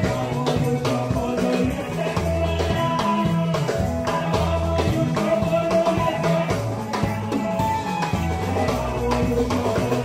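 Live seben-style African gospel praise music: a bass guitar playing a busy stepping line under a drum kit and band, with women singing.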